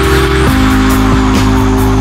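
Electronic music score: long held synth tones over a steady bass, shifting to a new chord about half a second in.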